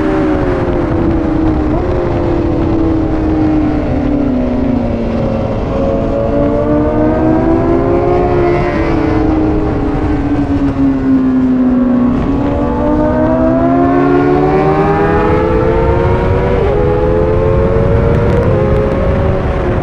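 Honda CBR1000RR-R Fireblade's inline-four engine heard on board at speed around a race track. The revs fall under braking and climb again under hard acceleration, twice, with quick gear changes near the end, over steady wind noise.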